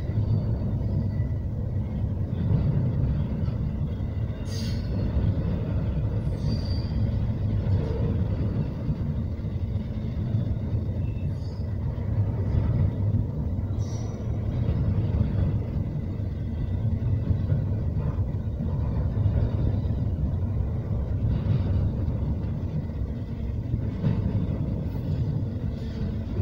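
Double-stack intermodal container train rolling past: a steady rumble of the well cars' wheels on the rails, with a few brief squeaks and clicks.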